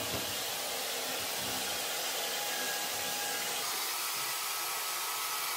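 Titan 1300 W wet-and-dry shop vacuum running steadily with an even hiss; its tone shifts slightly about two-thirds of the way through.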